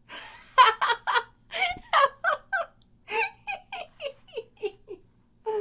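A person laughing in a long run of short "ha" bursts, about three a second, the pitch falling over the last couple of seconds: laughter at a surprise being sprung.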